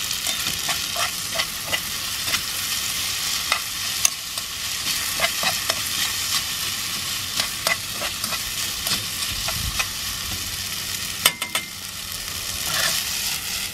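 Spaghetti sizzling in hot olive oil and garlic in a metal frying pan, with a metal spoon clicking and scraping against the pan as it is stirred; a sharper clink about eleven seconds in.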